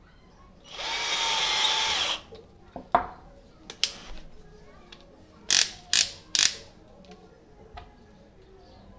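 Ingco cordless drill motor runs for about a second and a half. A couple of clicks follow, then three short, sharp bursts close together.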